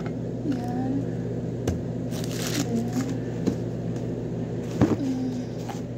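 Paper takeout food packaging being handled and opened, with a brief papery rustle about two seconds in and a few light knocks on the table, over a steady low hum.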